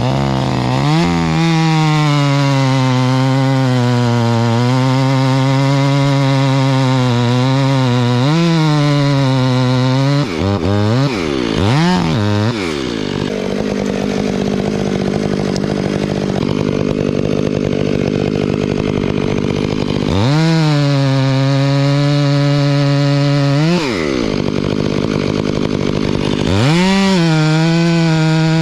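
Chainsaw cutting into a tree trunk during a felling cut, held at high revs under load for about nine seconds, blipped a few times, then left idling. It revs up and cuts again for about three seconds, then once more briefly near the end.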